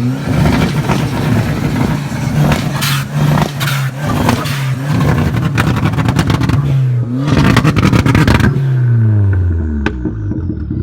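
Loud Dodge Neon SRT-4 turbocharged 2.4-litre four-cylinder engine revving: the pitch climbs, holds high with a few dips, rises sharply once more, then falls away near the end. Rough crackly stretches sit on top of the engine note.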